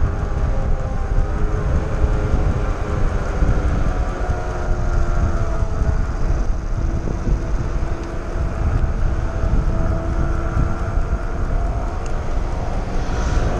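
Wind rushing over the microphone of a mountain bike on a fast descent, with a steady whine that wavers slightly in pitch.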